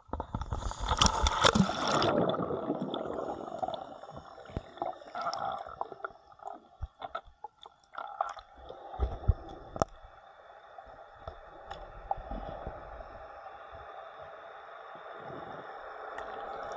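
Water splashing and bubbling against the camera as it goes under the surface, loudest in the first two seconds. Then muffled underwater gurgling with scattered sharp clicks and pops over a steady hiss.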